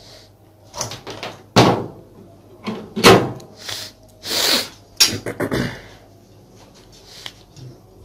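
A run of sharp knocks and clunks, with a brief rustling swish in the middle: hands handling things on a wooden table around an opened microwave oven and its power strip. The two loudest knocks come about one and a half and three seconds in.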